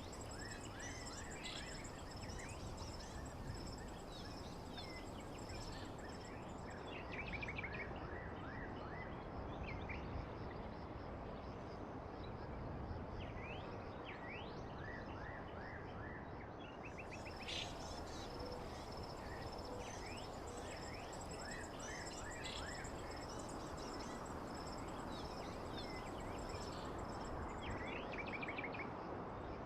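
Nature ambience: birds chirping in short scattered calls over a steady hiss, with a high, continuous insect trill.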